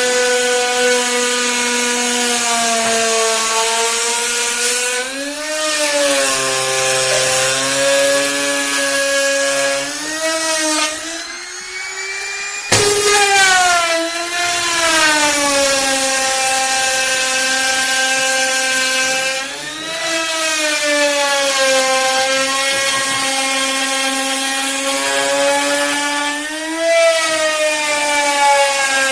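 Electric woodworking power tool motor whining at high speed as it cuts wood, its pitch sagging and recovering as the load changes. Partway through it dies down briefly, then starts up again with a quick rising whine as it comes back to speed.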